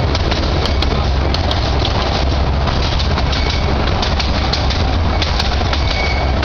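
Small toy train running along its track, heard from aboard: a steady rumble with scattered clicks of the wheels on the rails.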